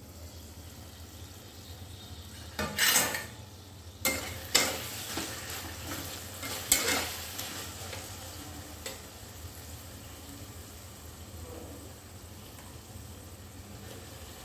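A metal spatula clanking and scraping against a metal kadhai as onions and tomatoes fry and sizzle in oil, with a few loud metallic knocks in the first seven seconds, then quieter stirring over the sizzle and a low steady hum.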